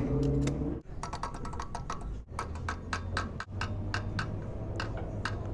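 Gas station fuel pump running during a motorcycle fill-up: a steady low hum, with a few pitched tones in the first second, then a run of quick, irregular clicks and taps.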